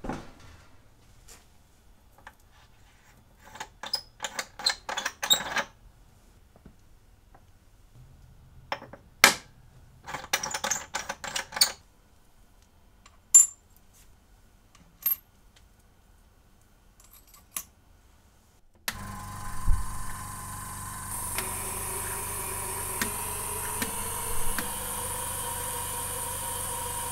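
Scattered small clicks and metallic rattles of hand handling and switching. About two-thirds through, a steady machine hum with a high hiss sets in and runs on, with a few small clicks over it.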